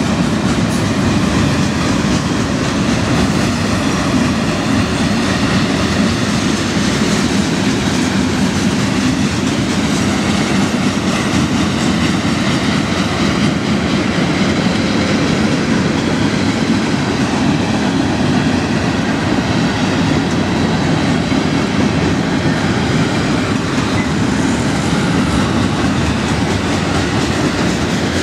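Freight train cars rolling steadily past: loud, continuous noise of steel wheels on the rails.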